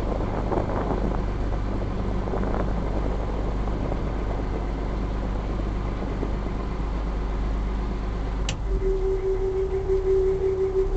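Small river ferry's engine running steadily under way, with wind noise on the microphone. About eight and a half seconds in there is a sharp click, the engine note changes, and a steady single-pitched tone starts and carries on.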